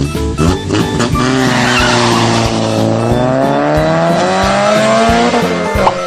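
A car sound effect: an engine revving, its pitch dipping and then climbing over about five seconds, with a skid-like hiss, laid over background children's music.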